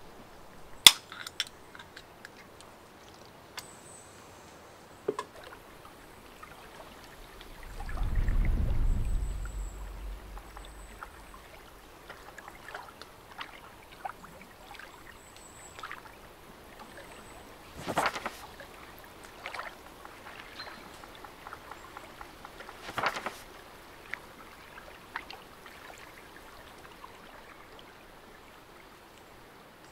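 Quiet lakeside ambience with soft water sounds, scattered clicks and knocks, and a few faint high chirps. A brief low rumble swells up about eight seconds in.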